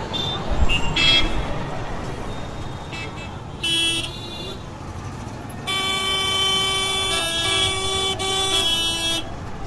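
Busy city road traffic with vehicle horns honking: short toots, then a long horn blast from about six to nine seconds in whose note steps up and down.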